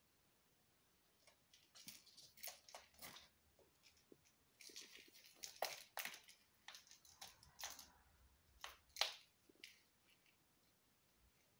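An eight-week-old kitten playing with a toy mouse beside a fabric pop-up play tunnel: a faint, irregular run of rustles, scrapes and light taps. It starts about a second in, thickens into a brief hissy rustle around the middle, and dies away near the end.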